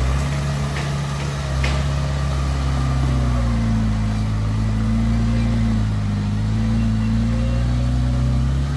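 Heavy diesel engine of an earthmoving machine running and revving: its pitch rises about three seconds in, dips briefly around six seconds, then climbs again near the end. Two sharp clicks in the first two seconds.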